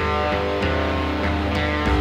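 Recorded shoegaze/noise-pop rock instrumental: layered, sustained electric guitar chords ringing with no vocals. Right at the end a low bass note comes in and the band gets louder.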